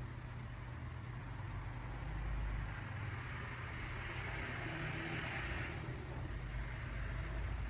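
Steady low background hum with a soft hiss that swells in the middle and fades again.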